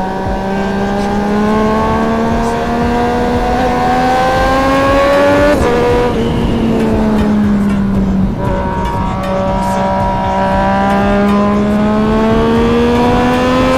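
Sport motorcycle engine pulling under acceleration, its pitch climbing steadily, then dropping at gear changes about five and a half and eight seconds in before climbing again.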